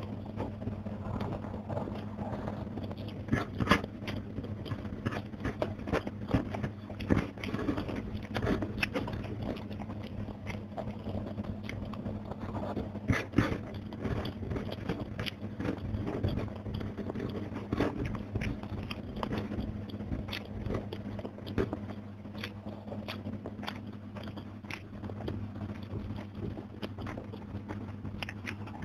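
Close-miked chewing and crunching of crispy fried fish, with many sharp crunches throughout, loudest about three and a half seconds in and again about thirteen seconds in, over a steady low hum.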